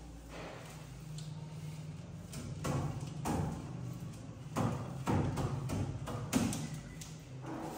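Soft grass broom sweeping a floor: a series of short brushing strokes, louder and more frequent from about two and a half seconds in, over a faint steady low hum.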